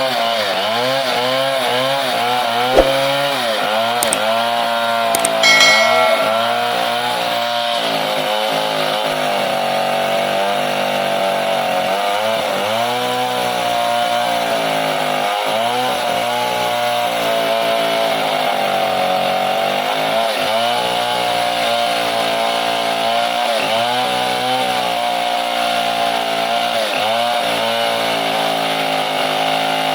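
Two-stroke chainsaw running at high revs as it cuts into a merbau trunk, its engine pitch sagging and recovering again and again as the bar takes the load. A short sharp knock comes about three seconds in.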